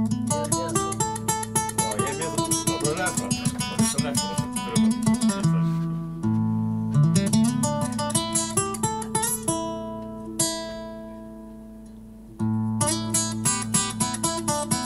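Solo acoustic guitar, quick picked notes and strummed chords. About ten seconds in, the guitarist lets a chord ring and fade for a couple of seconds, then picks up the playing again.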